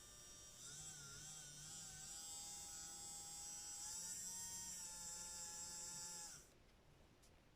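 Toy washing machine's small electric motor whirring faintly, its pitch wavering. It stops about six and a half seconds in.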